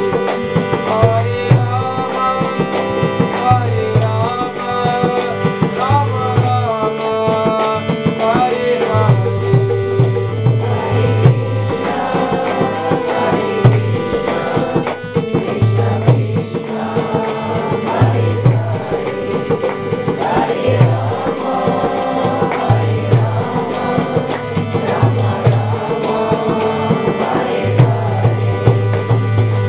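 Devotional bhajan music: a harmonium's held chords with a man singing over them, and a hand drum keeping a steady rhythm of deep strokes.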